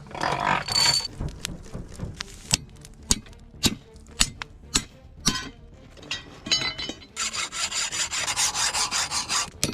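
A hand file rasping across leaf spring steel: two long strokes at the start, then scattered sharp taps and clinks, and a dense run of rasping in the last few seconds.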